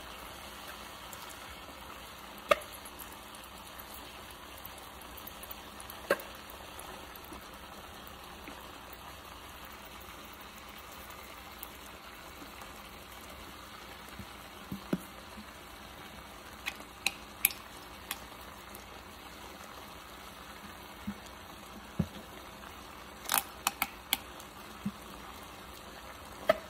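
Chicken pieces sizzling in a stainless steel pot: a steady hiss with scattered sharp pops.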